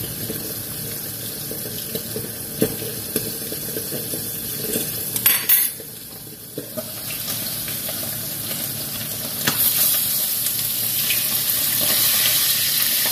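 Stovetop cooking noise: greens simmering in a wok with a spatula knocking against the pan, and a metal pan lid clanking about five seconds in. From about ten seconds in, the frying sizzle of pindang fish grows louder as the lid comes off its pan.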